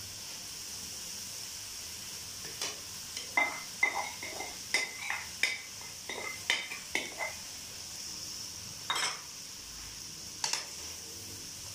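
Rice and vegetables sizzling steadily in a non-stick wok over a high flame, as boiled rice is tipped in and stirred. A plastic spatula scrapes and knocks against the pan in a quick run of strokes, then twice more near the end.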